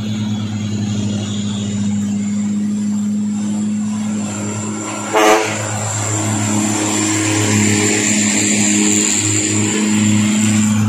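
Heavily loaded diesel trucks climbing a slope and passing close by, their engines running steadily under load. A short, sharp burst stands out about five seconds in.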